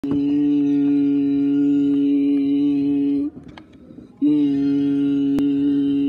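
Boston Bruins goal horn blowing: a long, steady low blast that cuts off after about three seconds, then a second blast starting about a second later. A single sharp click near the end.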